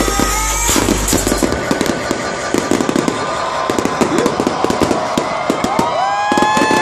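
Fireworks bursting in rapid, irregular bangs and crackles over music whose bass fades out about a second and a half in. Near the end a held high-pitched tone comes in.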